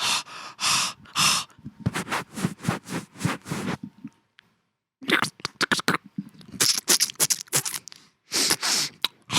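Mouth-made sound effects imitating eyeglasses being cleaned: a quick series of short hissing, breathy and scraping strokes, with a pause of about a second near the middle.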